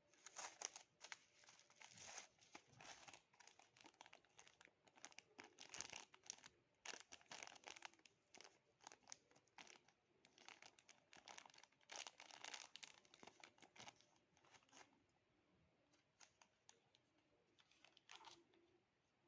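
Faint crinkling and tearing of product packaging being opened by hand, in quick irregular crackles that are busiest for most of the stretch and thin out to a few scattered rustles near the end.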